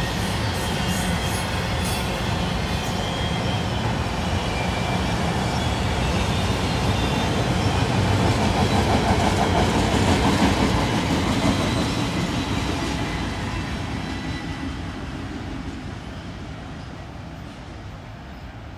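Freight train of enclosed autorack cars rolling past: a steady rumble of wheels on rail with faint high squealing tones. It is loudest about ten seconds in, then fades away as the train moves off.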